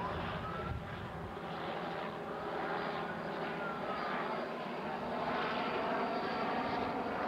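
A steady engine drone, even throughout, with a few faint gliding whistles over it.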